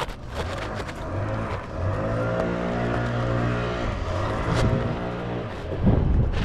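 An engine running with a steady pitched hum that rises and falls slightly, with a few sharp knocks mixed in.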